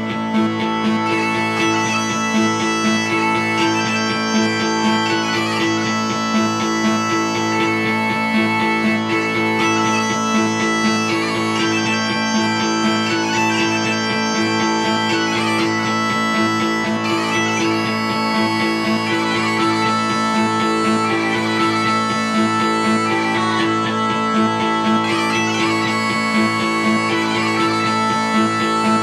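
Instrumental background music: a steady low drone under held melody notes.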